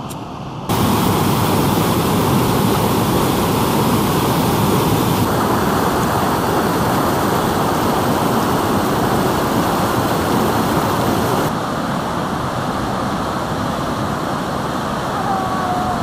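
Steady roar of rushing water from a waterfall of about 50 metres and the stream churning over the rocks below it. It jumps louder less than a second in and eases a little about two-thirds of the way through.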